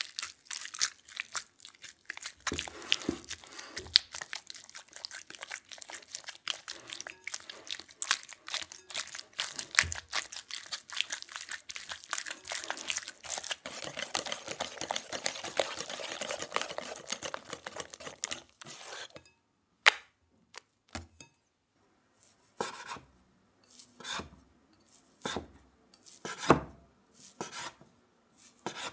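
Custard cream in a glass bowl, stirred with a silicone spatula and then whisked with a wire whisk: a fast, dense run of wet clicking and scraping against the glass. After it stops, a couple of knocks, then a knife saws through a sponge cake in a series of short, separate strokes.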